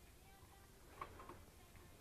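Near silence: room tone with a faint low hum and a couple of faint clicks about a second in.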